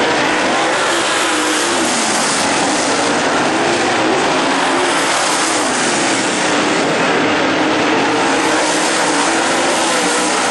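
Dirt late model race cars' V8 engines running on a dirt oval, a loud steady engine noise whose pitch rises and falls as the cars throttle through the turns.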